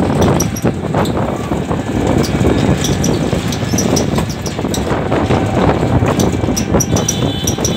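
Road noise of riding in an open rickshaw: a steady rumble from the wheels on the road, with the rickshaw's body rattling and clicking all the way. A faint high steady tone comes in near the end.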